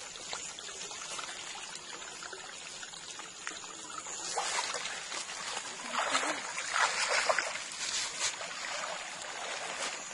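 Shallow water running and trickling through and around a mesh net trap set in a flowing channel. The flow gets louder and choppier about four seconds in and again from about six to nine seconds.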